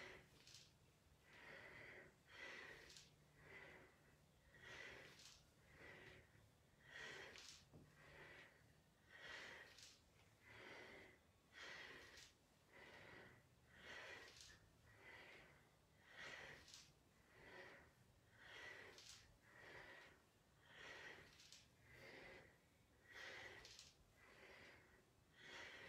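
A woman breathing hard with exertion while doing repeated deep squats: faint, even breaths roughly one a second.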